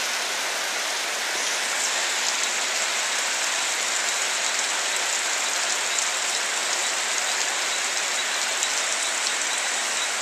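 Steady rain falling: a dense, even hiss with many small drop ticks running through it.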